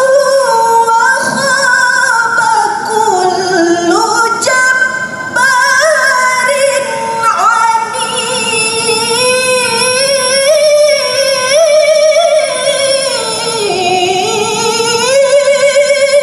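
A woman reciting the Quran in melodic tilawah style into a handheld microphone: long held notes that glide up and down in ornamented phrases, with vibrato on the sustained tones.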